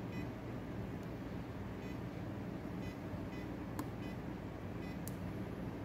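Keypad of a Newall DP700 digital readout beeping as its buttons are pressed, about four short faint beeps, with a couple of light clicks later, over a steady low hum.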